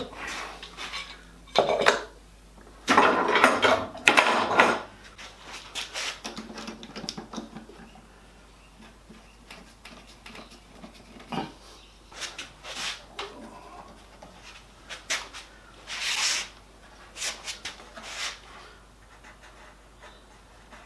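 Knocks, scrapes and clatter of wooden pieces and hand tools being handled on a workbench, with a few louder bursts in the first five seconds and scattered clicks after.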